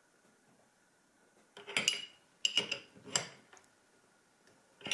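Steel open-end wrenches clinking against the CNC router spindle's collet nut as it is tightened to stop the end mill slipping: three quick clusters of sharp metallic clinks from about a second and a half in, and one more near the end.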